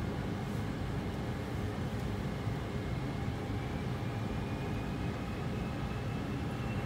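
Steady rumble and hiss of the flight-deck noise in an Airbus A320 full-flight simulator, with a faint whine slowly rising in pitch through the second half.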